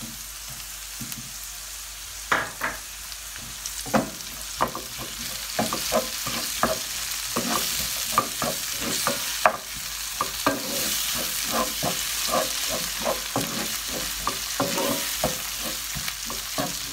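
Chopped tomatoes being stirred with a wooden spoon into onions and mixed vegetables frying in a non-stick pan: repeated spoon knocks and scrapes over a steady sizzle. The sizzle grows louder about halfway through.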